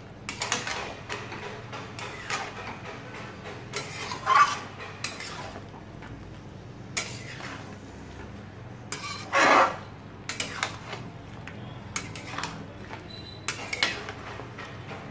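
A spatula scraping and knocking against a kadhai as chunks of mutton are stirred and turned in their own juices, in irregular strokes. The loudest strokes come about four and nine seconds in.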